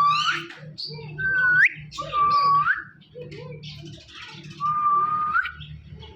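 Indian ringneck parrot whistling: four whistles, each a held note that ends in a quick rising sweep, over a steady low hum.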